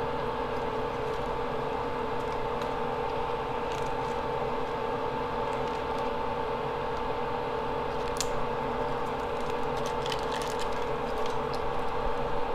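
Steady hum of workbench equipment with a constant whine, and a few faint clicks of small plastic parts being handled, the clearest about eight seconds in.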